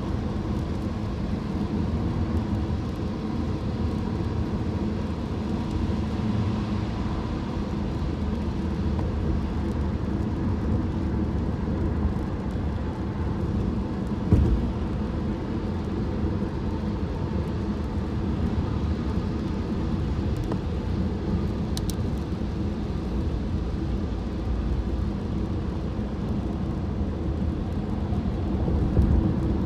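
Steady low road rumble inside a moving car's cabin on a wet freeway, from tyres and engine. There is a single thump about fourteen seconds in.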